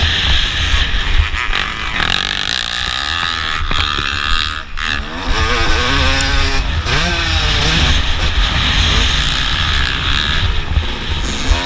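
Motocross bike engine revving hard, its pitch rising and falling repeatedly as the rider works the throttle and gears, heard from a helmet-mounted camera with a constant rush of wind noise.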